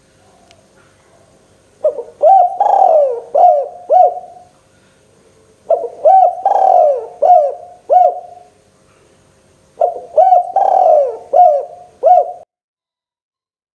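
Spotted dove (derkuku, tekukur) singing: three cooing phrases of five or six notes each, about four seconds apart. The sound cuts off abruptly after the last phrase.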